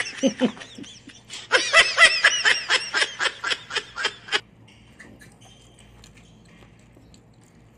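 Loud, squeaky sucking as snail meat is slurped from the shells of ginataang suso (snails cooked in coconut milk): a rapid string of pitched, squealing sucks, about five a second. A short burst comes right at the start and a longer run from about a second and a half in to just past four seconds.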